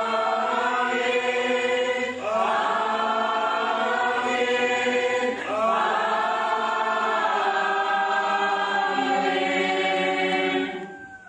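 Church congregation singing slowly in three long, held phrases, the last one fading out near the end.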